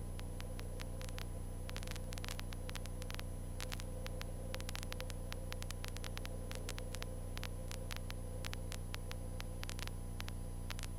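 Cessna 152 cockpit radio and intercom audio between transmissions: a steady low hum with frequent crackling clicks of static.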